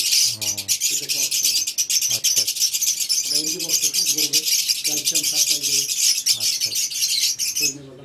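A colony of lovebirds chattering: a dense, unbroken stream of rapid, high-pitched chirps from many birds at once.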